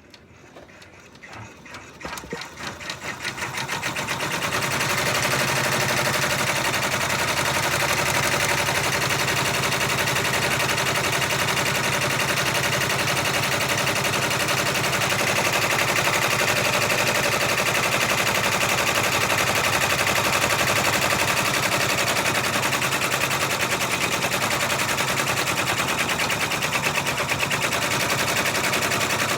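Baby Lock six-needle embroidery machine starting up and speeding up over the first few seconds, then stitching out a monogram at a steady, rapid rate of needle strokes.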